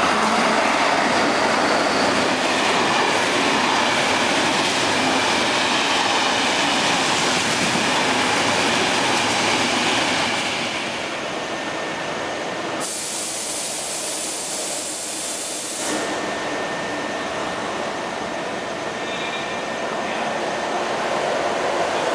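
Guangzhou–Kowloon through train (KTT) passing through the station without stopping: a loud, steady rush of wheels on rail. It falls away about ten seconds in, leaving a steady, quieter background noise.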